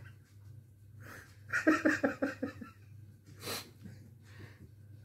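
A man laughing behind his hand: a quick run of about seven short laughs a second and a half in, then a sharp breath out near the end.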